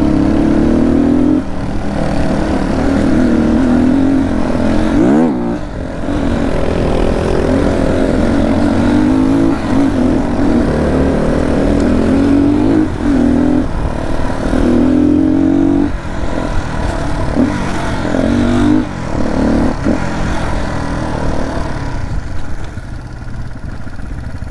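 Dirt bike engine running under load, its note climbing and dropping again and again as the throttle opens and closes, with a quick rising rev about five seconds in.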